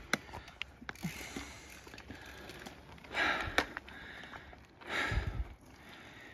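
A mountain biker breathing hard on a steep climb, with two loud breaths about three and five seconds in, over a few faint clicks.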